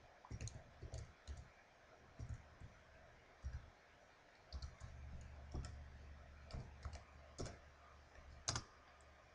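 Faint, irregular computer-keyboard keystrokes as a registration token is typed into a terminal, with a few louder clicks in the second half.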